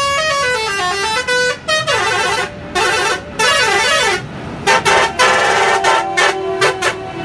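A truck's musical horn playing a tune: a string of notes stepping down and back up, then a quick series of short blasts in the last few seconds, over the low rumble of the truck.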